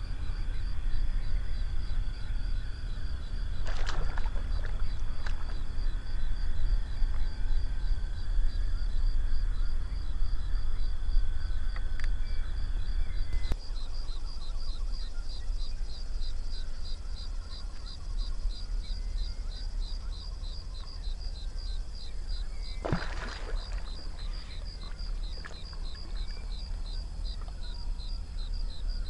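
Pond ambience: a steady low rumble under an insect's high, pulsing trill of about four pulses a second. Two brief louder sounds stand out, one a few seconds in and one near the end.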